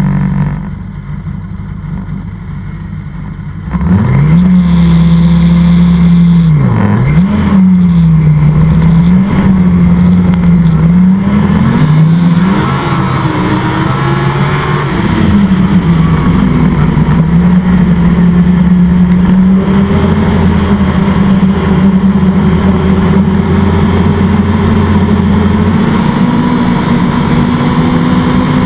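Yamaha Apex snowmobile engine, a four-stroke four-cylinder, idling, then opening up sharply about four seconds in as the sled pulls away. It runs hard along the trail, its pitch dipping and rising as the throttle is eased and reapplied, and climbing slowly near the end.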